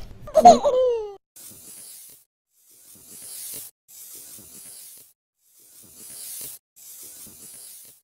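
A short cartoon voice-like sound falls in pitch and ends about a second in. It is followed by five faint, scratchy hissing strokes, each under a second long, like chalk drawn across a blackboard as each line is sketched.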